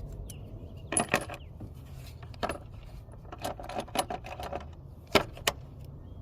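Scattered light metallic clinks and clicks of hand tools and small parts being handled while fitting a coil pack.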